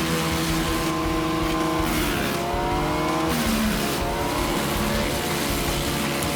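Wood chipper engine running under load. Its pitch sags twice as wood is fed and the machine bogs, then climbs back.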